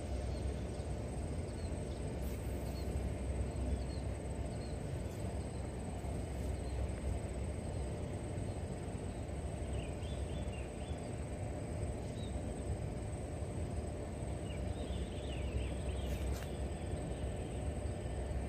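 Steady low rumble of outdoor background noise, with faint short high chirps about ten seconds in and again around fifteen seconds.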